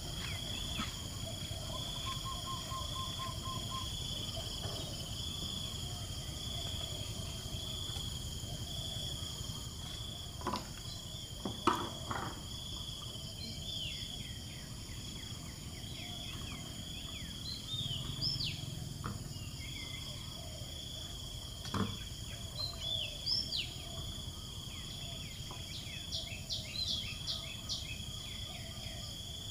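Outdoor ambience: a steady high insect drone throughout, with birds calling in short falling chirps from about halfway on. A short rapid run of low pips comes a couple of seconds in, and a few sharp clicks come around ten to twelve seconds and again a little past twenty seconds.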